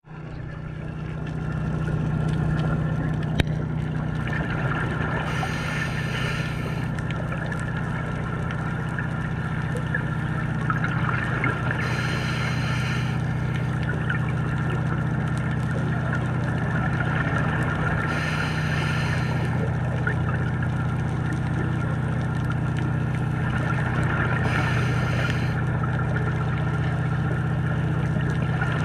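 Underwater: a scuba diver's exhaled breath bubbling out of the regulator in four bursts about six seconds apart, over a steady low drone.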